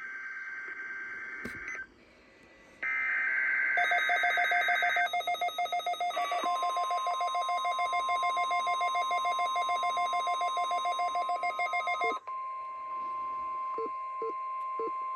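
NOAA Weather Radio required weekly test: rasping bursts of SAME digital header tones, then the steady single-pitch warning alarm tone starting about six seconds in and holding through the end. A rapid pulsing beep runs over it from about four to twelve seconds.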